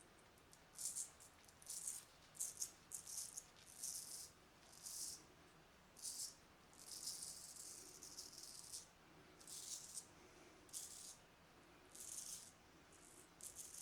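Filarmonica 4/8 straight razor scraping through lathered stubble in about a dozen short, faint strokes at uneven intervals.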